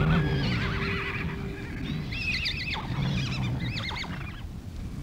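Horses whinnying: several high, quavering neighs in a row, over a low rumble of hooves on dirt.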